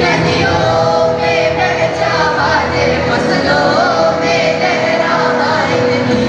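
A group of voices singing a song with music behind it, over a steady held tone.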